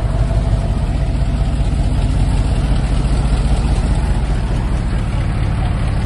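Loaded dump truck's diesel engine running hard under load as the truck pulls across soft dirt, getting louder right at the start and then holding steady.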